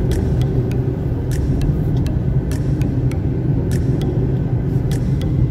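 Inside a moving car's cabin: a steady low rumble of engine and tyre noise at road speed, with light sharp clicks every half second or so.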